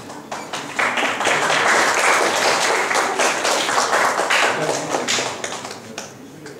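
Audience applauding: a burst of many hands clapping that swells within the first second, holds for several seconds and tails off near the end.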